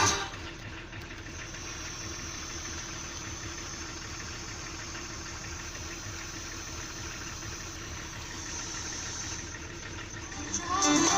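Engine running steadily at idle, a low even hum.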